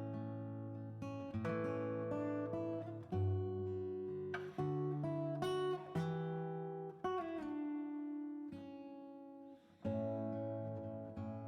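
Background music: acoustic guitar playing chords, each one plucked or strummed and left to ring, changing every second or so.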